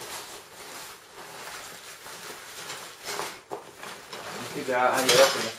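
Quiet rustling and handling of a nylon carry bag as it is felt and turned over, with a few soft scrapes about three seconds in.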